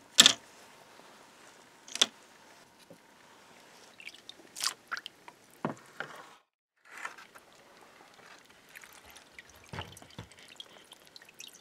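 Small rusty steel latch parts dropped into a plastic parts basket, clicking and clattering against it: one sharp click at the start, another about two seconds in, and a run of lighter clicks between four and six seconds. After a short break, softer scattered clicks and dripping, liquid sounds of the parts in the rust-remover bath.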